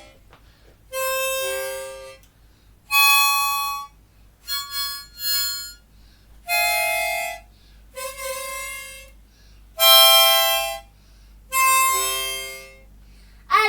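A wind instrument playing about seven short held notes and chords, each about a second long, with pauses between them.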